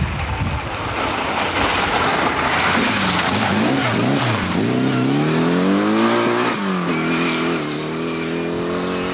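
Rally car engine revving hard on a loose gravel stage, with a rush of tyre and stone noise as it passes close. Then the engine pitch climbs steeply, drops sharply at a gear change about six and a half seconds in, and holds as the car pulls away.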